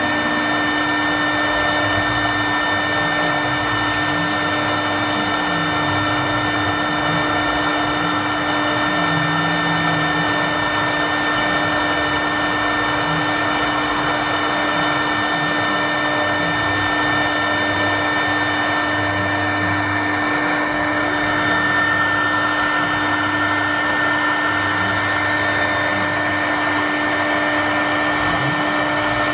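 CNC router spindle running at a steady high-pitched whine as its bit engraves a line drawing into a wooden board. Underneath are lower motor tones that keep changing pitch as the cutting head moves from stroke to stroke.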